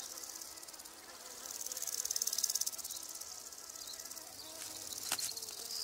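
Insect chorus: a steady, high-pitched, fast-pulsing trill that swells a little about two seconds in.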